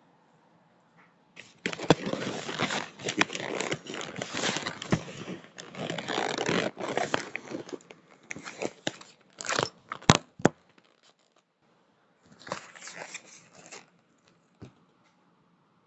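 Paper being crumpled and crinkled by hand: a long run of dense crackling for about six seconds, then scattered sharper crackles with one loud snap, and a shorter burst of crinkling near the end.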